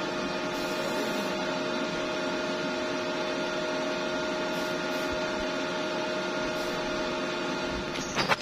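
Steady electrical hum with a few fixed tones, with a brief crackle near the end.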